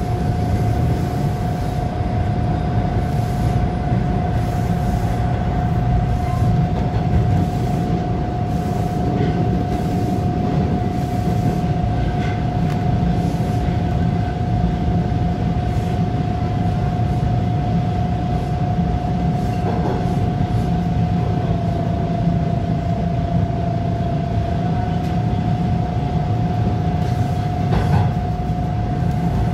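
TTC Bombardier T1 subway train running through a tunnel: a steady rumble of wheels on rail with a constant high whine, which drops slightly in pitch for a few seconds about two-thirds of the way through.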